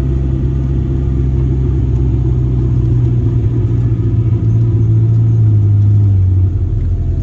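Zenvo TSR-S's twin-supercharged flat-plane V8 idling with a steady low rumble. The note deepens and grows a little louder about four and a half seconds in, then settles back shortly before the end.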